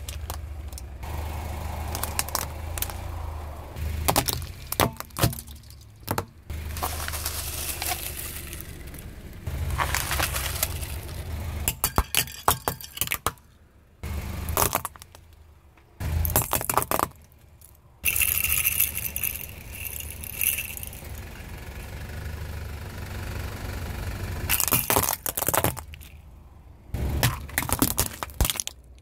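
A car tyre rolling slowly over plastic toys and crushing them: repeated sharp cracks and crunches of plastic breaking and fragments scattering, over the low rumble of the car. The sound comes in several separate takes with abrupt cuts between them.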